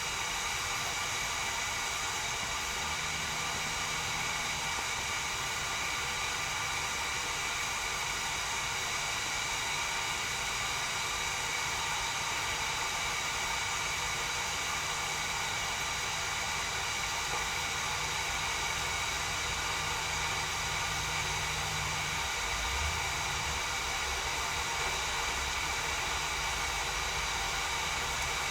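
Tea kettle heating water toward the boil, before it whistles: a steady hiss, with a faint low hum that stops about 22 seconds in.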